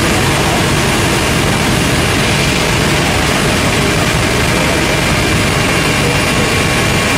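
Helicopter cabin noise in cruising flight: the loud, steady drone of the engine and rotor, with a few faint steady whining tones on top, heard from inside the cabin.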